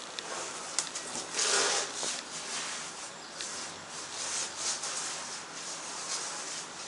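Lubricant being rubbed onto a tire's bead: a series of rubbing swishes, the longest about one and a half seconds in, then shorter strokes.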